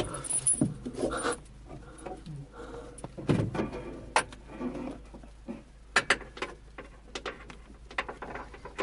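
Irregular clicks, knocks and rustling from a Grob Astir glider's cockpit as the control stick and levers are worked during pre-flight checks.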